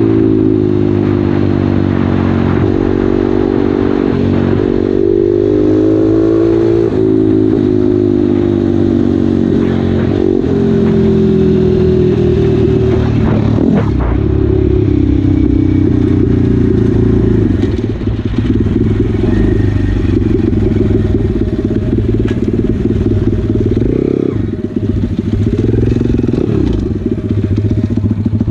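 Pit bike's small single-cylinder engine running on the move, its pitch rising and falling with throttle and gear changes over the first half, then holding steadier.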